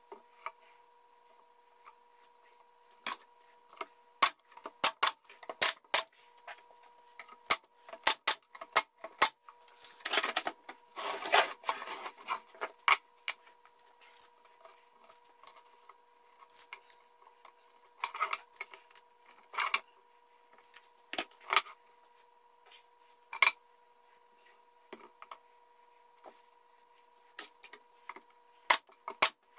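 Pine boards and strips being handled on a wooden workbench: scattered knocks and clicks as pieces are set down and shifted, with a stretch of rubbing and scraping about ten seconds in. Near the end come two loud sharp shots from the pneumatic stapler fastening the strips.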